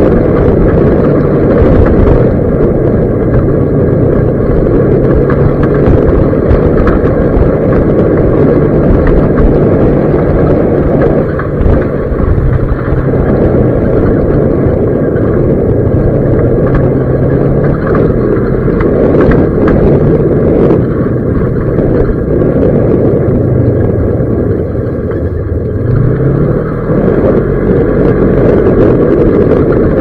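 Vehicle engine running as it drives a rough dirt track, under heavy wind buffeting on the microphone. The engine note holds fairly steady, then dips and climbs again near the end.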